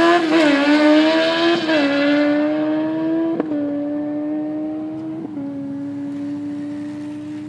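Kawasaki ZX-14's inline-four engine at full throttle on a drag-strip pass. Its pitch climbs through each gear and drops at four quick upshifts, and the sound fades steadily as the bike pulls away into the distance.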